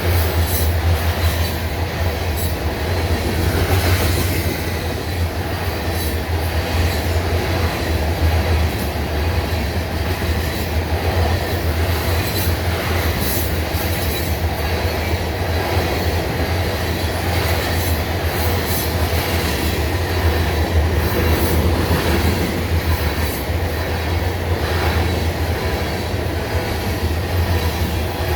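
Freight train of grain hopper cars rolling past at speed: a steady, loud rumble of steel wheels on rail, with repeated clicks as the wheels cross rail joints.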